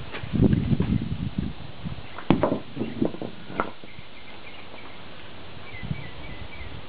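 Footsteps in sandals scuffing on a concrete slab, with a sharp knock a little over two seconds in and a few lighter knocks after it. The sounds then die away to steady background.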